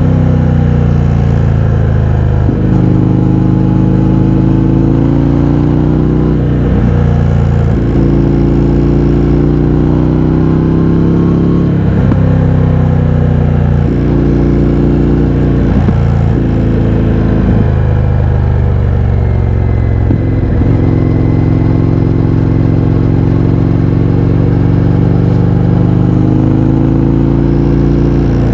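Indian FTR 1200's V-twin through an Akrapovič exhaust with the baffles removed, under way on the road: the engine note climbs steadily and drops sharply again and again as the rider works through the gears, with brief gaps at the shifts.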